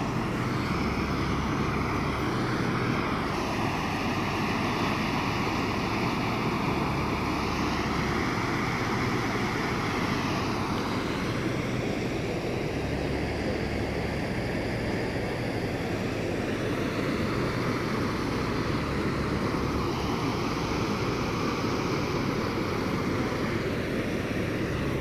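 Flooded creek water rushing across a concrete road and churning over its edge: a steady, unbroken rush of water.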